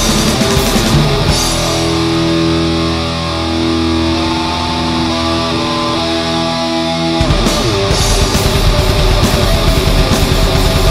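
Black metal recording with distorted electric guitars. About a second in the drums drop out, leaving held guitar chords ringing. Around seven seconds in the full band with fast drumming comes back in.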